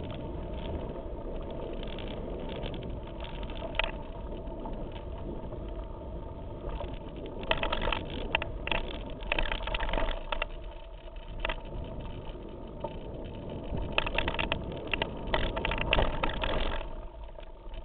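Mountain bike riding fast down a rough forest trail, picked up by a handlebar-mounted camera: a steady rumble of tyres over dirt and stones with the bike rattling, and two spells of sharp clattering over rougher ground, the second running to near the end.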